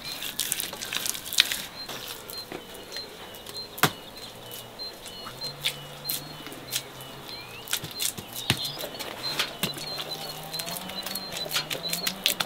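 Sharp, irregular clicks and crackles close by, with small birds chirping over and over in the background.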